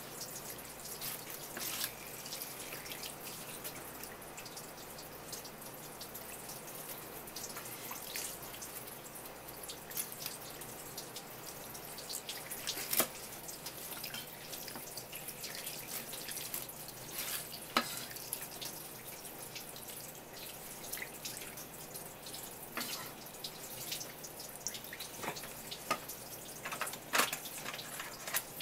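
A thin stream of tap water falling steadily onto a wooden cutting board and splashing, with scattered sharp clicks and scrapes from a knife working over the sardines on the board.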